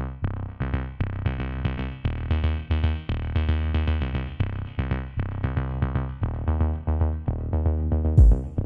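Background electronic music with a steady drum-machine beat and repeating synth bass notes. Near the end, a louder hit with a bright crash comes in.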